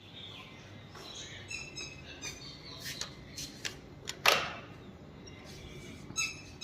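Recently hatched chicks cheeping in short high calls, with one louder, harsher sound about four seconds in.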